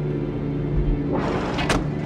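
A white van's engine running under a low, dark film-score drone; about a second in, a rush of noise swells, and a sharp knock comes near the end.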